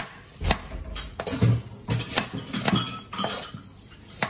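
Chef's knife slicing onion into wedges on a plastic cutting board: the blade cuts through and knocks on the board about twice a second, unevenly spaced.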